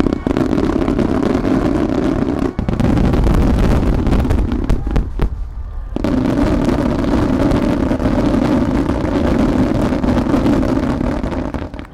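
Finale barrage of fireworks, many shells launching and bursting in quick succession as a dense, continuous rumble with sharp bangs through it. It thins briefly about five seconds in and dies away near the end.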